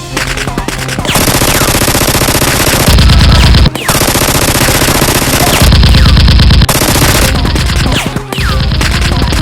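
Rapid machine-gun fire sound effects in long volleys, with short breaks between bursts.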